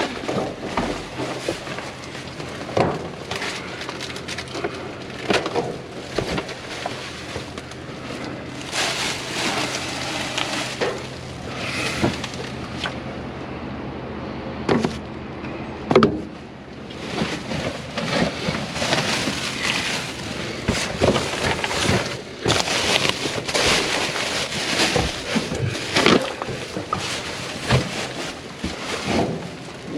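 Rummaging through a dumpster: irregular rustling, knocks and clatter as bags, boxes and discarded items are shifted and handled.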